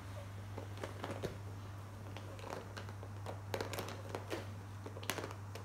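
Scattered soft rustles and light taps of a child handling a picture book, with a steady low hum under them.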